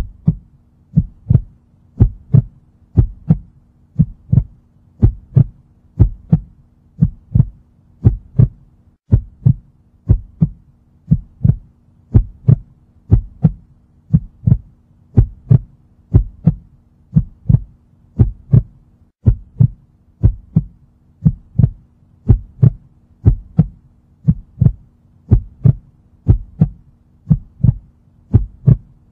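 Heartbeat sound effect: steady paired thumps, lub-dub, about one beat a second, over a faint steady hum.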